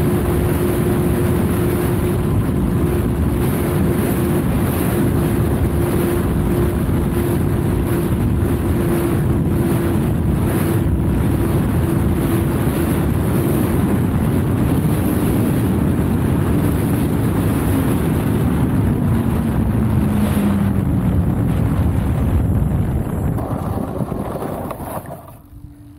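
Wind buffeting the plane-mounted camera's microphone over the steady whine of a twin-motor electric RC plane's propellers. The whine falls in pitch about three quarters of the way through as the throttle comes down for landing, and the noise fades away near the end as the plane comes to rest.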